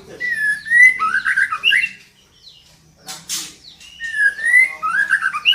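Female white-rumped shama calling: two phrases of quick whistled notes sliding up and down, with a short harsh rasp between them.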